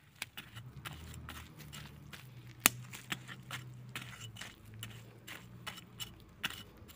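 Soil and compost being worked by hand with a garden tool: scattered crunching and scraping clicks, with one sharp click a little under three seconds in, over a low steady hum.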